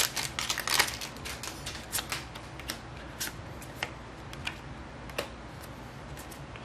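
A foil booster-pack wrapper crinkling briefly. Then Magic: The Gathering trading cards are pulled out and flicked through by hand, giving light clicks a few times a second that thin out near the end.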